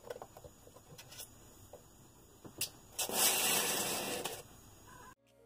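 Small plastic clicks and taps of hands handling the rear shock and suspension parts of an RC buggy, then about three seconds in a loud, even rubbing noise lasting about a second and a half, from a hand brushing over the foam block the buggy stands on. The sound cuts off suddenly near the end.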